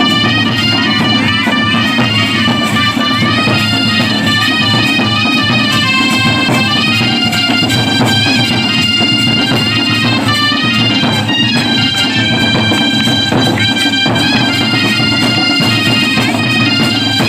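Loud folk music: a reedy wind instrument playing a sustained, stepping melody over continuous drumming.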